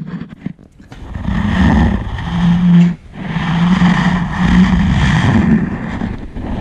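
Poodle growling in play, long rough growls with short breaks about three seconds in and near the end.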